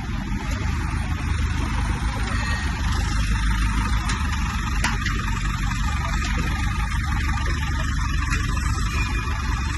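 A 15 kVA diesel generator's engine running at a steady speed, a continuous low rumble with a few light clicks on top.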